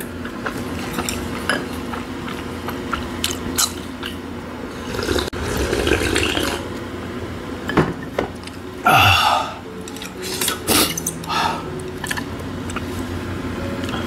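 A person eating noodle soup: chewing and slurping, with irregular clicks of chopsticks against bowls and dishes and a few louder mouth sounds.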